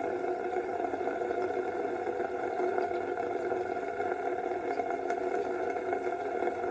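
Tap water running steadily from a bathroom faucet into a sink, a constant rushing hiss with a steady ringing tone.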